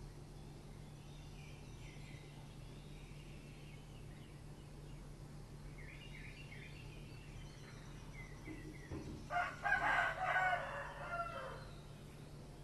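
A rooster crowing: one loud cock-a-doodle-doo about nine seconds in, lasting over two seconds, with fainter calls earlier. A steady low hum runs underneath.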